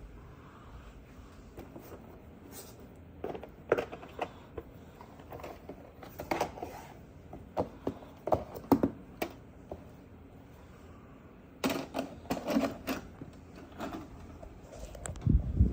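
Irregular mechanical clicks and clunks of something being handled in a small room. They are scattered through the middle and bunch together about twelve seconds in.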